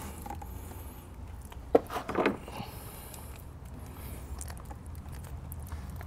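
Quiet handling of wiring and crimping pliers while a butt connector is fitted to the power wire, with a few short clicks about two seconds in, over a steady low hum.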